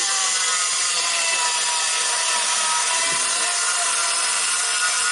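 Power saw running steadily under load, cutting through wood sheathing, with a continuous high whine. The cut runs through the whole stretch without a break.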